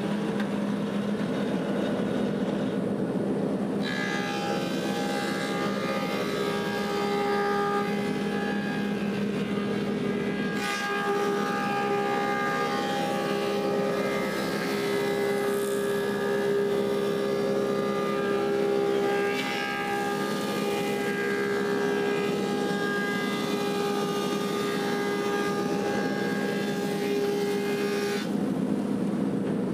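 Woodmaster 725 planer with a helical cutterhead running. From about four seconds in, a quartersawn spalted sycamore board feeds through and the cut adds a steady whine over the motor hum. The whine stops shortly before the end.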